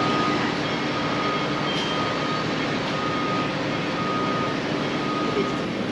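Steady rushing background noise of a rail station concourse, with a faint high beep repeating at short, even intervals and a low steady hum.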